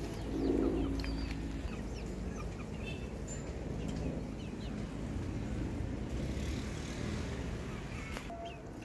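Chickens clucking over a steady low rumble like a running engine or passing vehicle.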